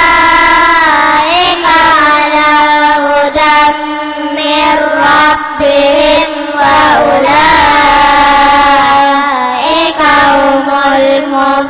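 Group of children chanting Quranic verses in unison to a melodic tartil tune. They hold long notes and slide between pitches, with short breaks between phrases.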